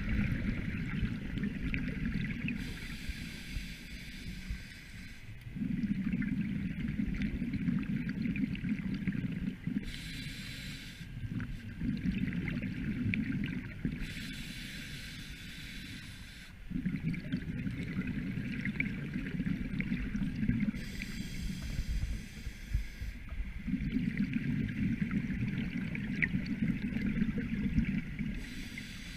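Scuba diver breathing through a regulator underwater: a hissing inhale alternates with a longer gurgling rush of exhaled bubbles, a full breath roughly every five to six seconds.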